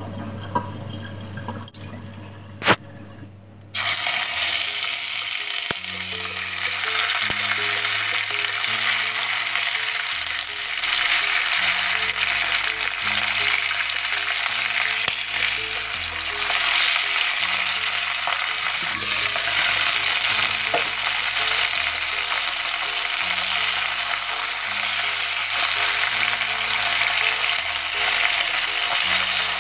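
Chicken wings sizzling as they fry in hot oil in an electric tagine pot. The sizzle starts suddenly about four seconds in and carries on steadily, over soft background music.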